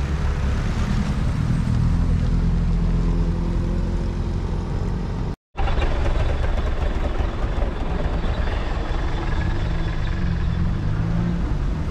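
Car engines running on a snowy road, their pitch rising and falling as they rev. The sound cuts out briefly about halfway through, then a vehicle engine runs on with another rise and fall in revs near the end.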